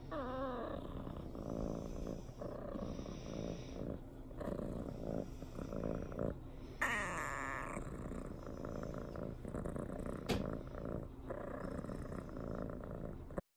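Brown tabby kitten purring steadily while being stroked, with a short higher wavering sound just after the start and another brief higher sound about seven seconds in.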